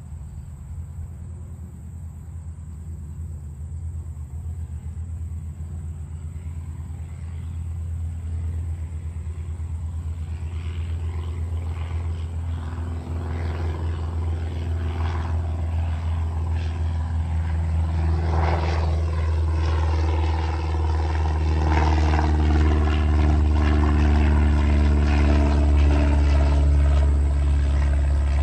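Single-engine piston Cessna taking off and climbing out, its engine and propeller drone growing steadily louder as it approaches and passes overhead, loudest near the end.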